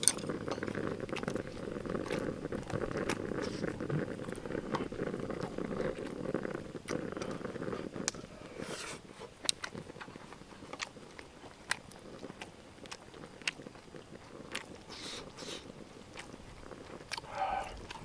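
Close-miked eating sounds: chewing and biting on braised kimchi and pork belly, with sharp clicks of utensils against the dishes. A low steady hiss sits underneath and fades about halfway through.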